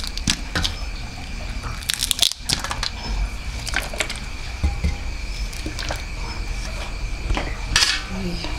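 Kitchen work: scattered clicks and knocks of utensils and dishes being handled, over a steady high-pitched hum.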